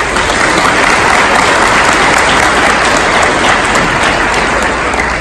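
Audience applauding steadily, beginning to die away at the very end.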